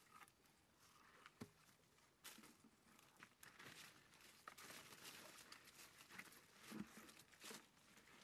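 Faint rustling and crackling of dry lotus leaves and stalks as someone walks through them, with scattered soft footsteps and a few louder crackles about seven seconds in.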